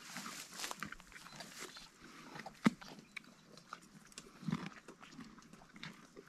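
Two donkeys grazing and eating watermelon close up: irregular crunching, tearing and snuffling as they bite and chew grass and fruit, with one sharp crunch a little under halfway through.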